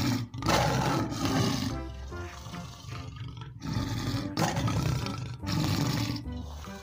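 Male lion roaring in three loud bursts, the first and longest at the start, with background music underneath.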